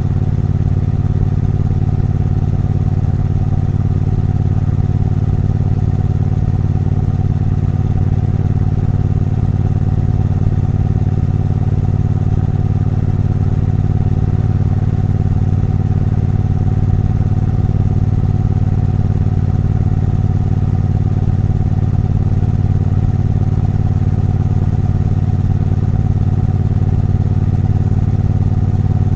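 Triumph Bonneville T120's 1200 cc parallel-twin engine running at steady, unchanging revs, its exhaust note held level with no revving or gear changes.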